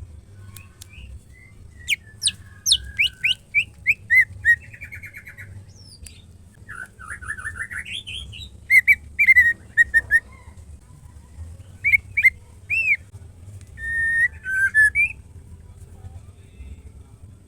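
White-rumped shama singing: bursts of clear whistles, quick down-slurred notes and rapid trills with short pauses between phrases.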